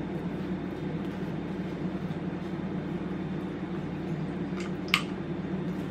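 Steady low mechanical hum, with one sharp click about five seconds in.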